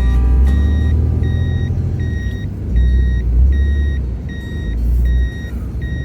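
Toyota Hilux reverse-gear warning beeping steadily, about one beep every three-quarters of a second, as the truck backs up. Underneath it the truck's diesel engine and drivetrain give a low rumble that swells and eases.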